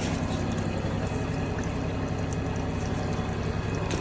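Water rushing steadily through a drain line, over the low, steady hum of a running motor.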